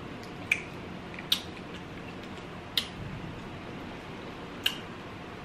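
Four short, sharp clicks over a low steady hiss as a whole fried croaker fish is picked apart by hand with long acrylic nails.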